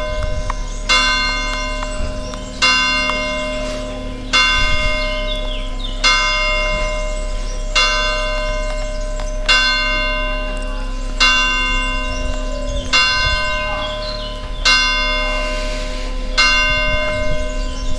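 A church tower bell striking the twelve strokes of noon: single hammer blows about every 1.7 seconds, each ringing on into the next, about ten strokes in all.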